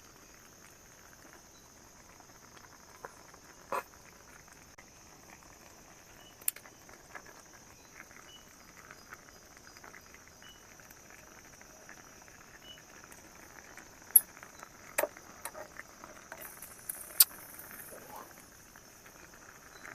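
Steady high-pitched chorus of insects, crickets among them, with scattered sharp clicks and knocks from cooking work, the loudest about 14 and 17 seconds in.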